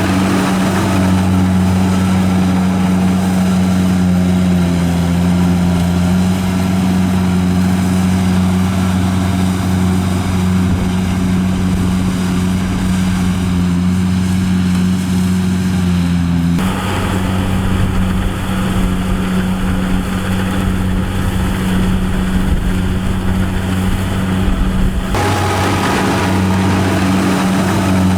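Engine of a rice harvesting machine running steadily, a constant hum; the sound changes abruptly about 16 seconds in and again about 25 seconds in.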